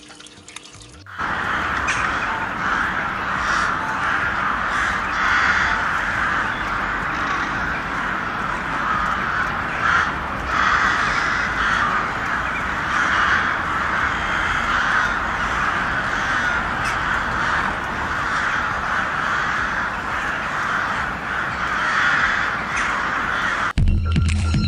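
A large flock of birds calling all at once, a dense, unbroken clamour of overlapping harsh calls. It starts abruptly about a second in and cuts off near the end.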